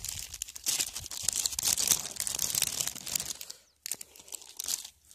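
Clear plastic bag crinkling as it is handled: continuous crinkling for about three seconds, then two short bursts.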